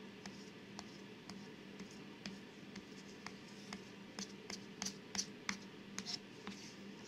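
Blue glue stick rubbed back and forth over a paper template on plywood: a faint scratchy rubbing with scattered light ticks, busier about four to five and a half seconds in.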